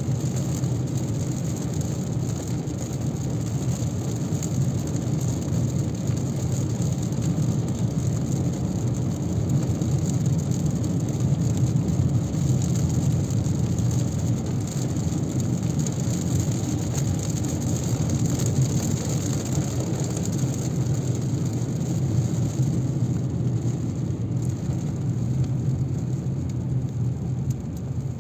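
Steady noise inside a Mazda 3 moving through a rainstorm: road and rain noise over a low, even rumble.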